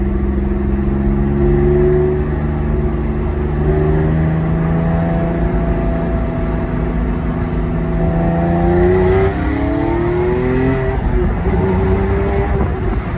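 A 2008 Porsche 911 Carrera S's flat-six engine, heard from inside the car, pulls steadily at cruising speed. About two-thirds of the way in it accelerates: the pitch rises, drops at a gear change, and rises again before settling.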